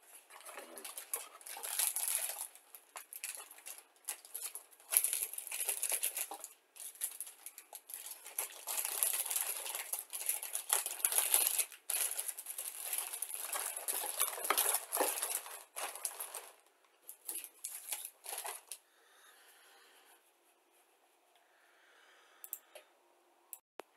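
Plastic parts bags and paper sheets of a model kit crinkling and rustling as they are handled and laid back into the box, in irregular bursts for about the first nineteen seconds, then much quieter.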